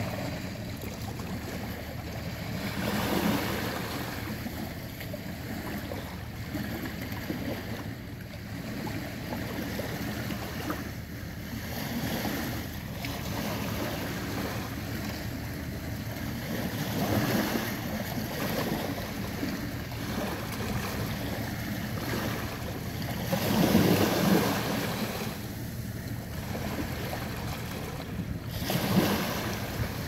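Small sea waves lapping and washing up at the water's edge, swelling a few times and loudest about three-quarters of the way through, with some wind on the microphone.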